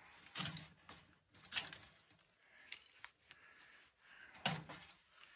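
A handful of sharp clicks and clacks, irregularly spaced, with a couple of duller knocks, from a hand tool working on the sheet-metal chassis of a telephone media gateway being taken apart.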